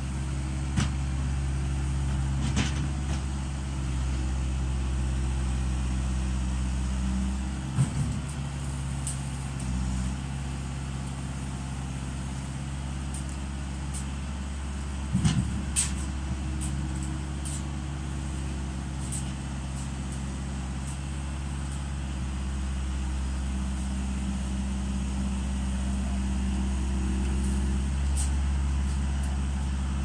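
Skid steer loader's diesel engine running steadily at a constant speed, with a few short sharp knocks.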